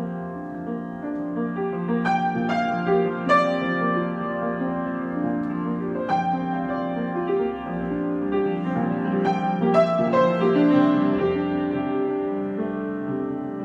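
Solo piano improvisation: low chords held under a slow melody, with single notes struck clearly at intervals and left to ring.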